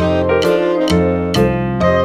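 Background music: a piano or keyboard tune with a new chord or note about every half second.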